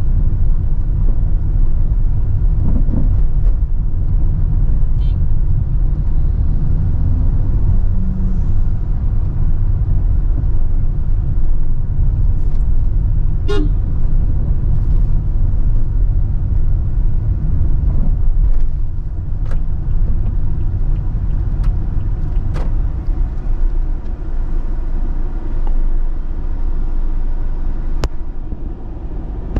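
Car driving on a rough, worn road, heard from inside the cabin: a steady low rumble of engine and tyres, with a few short knocks and clicks.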